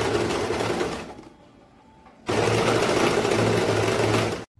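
Electric sewing machine running at speed as it stitches fabric, dying away to a stop about a second in, then starting again just after two seconds and running until it cuts off abruptly near the end.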